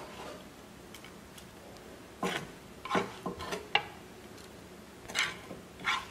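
Silicone spatula scraping scrambled egg out of a frying pan and onto a plastic serving plate: a handful of short scrapes and light knocks, clustered about two to four seconds in and twice more near the end.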